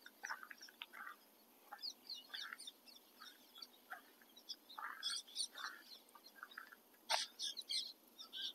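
Faint birdsong: several birds give short chirps and calls, scattered irregularly, with a busier cluster of calls about five seconds in and again near the end.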